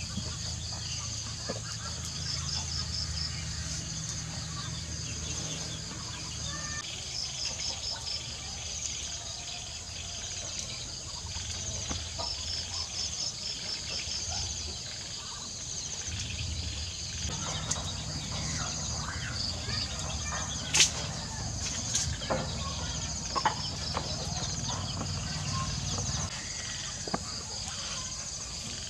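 Night insects trilling steadily in high, evenly pulsing runs over a low rumble that fades out for a while in the middle and returns. A few sharp clicks and taps come about two thirds of the way through.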